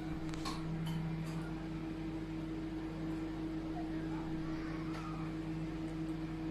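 MEDION MD 15501 microwave oven running: a steady hum, with a few faint clicks in the first second or so.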